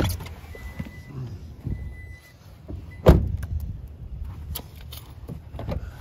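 Door of a 2021 Toyota Tacoma pickup opened and slammed shut about three seconds in: a single heavy thump that is the loudest sound, with a few smaller knocks and clicks around it over a steady low rumble.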